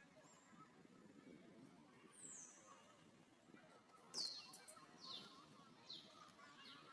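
Faint, high-pitched chirps, each sliding down in pitch: one a little after two seconds in, then a series about once a second from about four seconds in, over a low background hiss.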